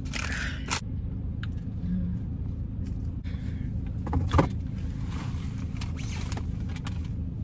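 Car running, a steady low hum heard from inside the cabin, with scattered rustling and clicks and one louder knock about four seconds in.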